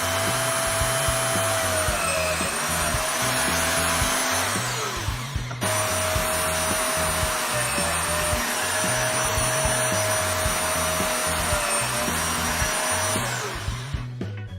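Homemade bandsaw's electric motor and blade running with a steady whine, the pitch sagging briefly now and then. It winds down about five seconds in, runs again straight after, and winds down near the end.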